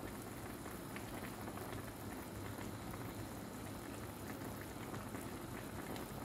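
Chicken adobo with potatoes simmering in an aluminium pot on a gas burner: a steady bubbling with many small pops.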